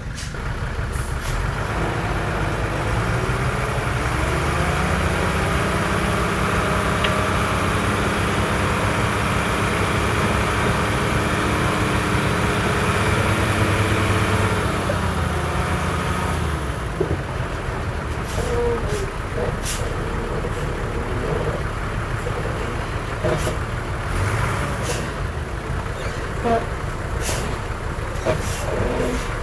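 Heavy diesel engine of earthmoving machinery revving up a couple of seconds in and working hard for about ten seconds, then easing back to a lower run. Through the later part come scattered sharp metallic clanks and short squeaks.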